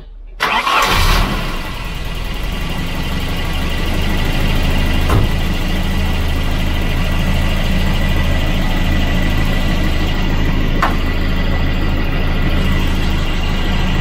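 Volvo B230 redblock 2.3-litre four-cylinder engine starting, catching almost at once with a short loud burst, then settling into a steady idle.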